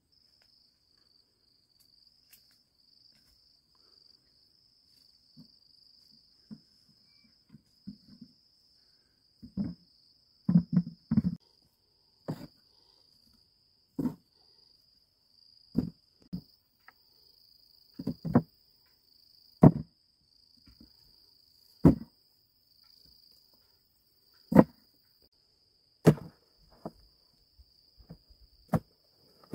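Heavy thuds every one to two seconds as cassava roots are dropped onto a pile and into a plastic bucket, over a steady high chirring of insects.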